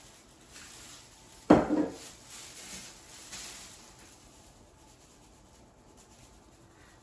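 A glass olive-oil bottle set down on a granite countertop with one sharp knock about a second and a half in, followed by a few soft rattles and patters as salt is shaken from a round canister onto fish fillets.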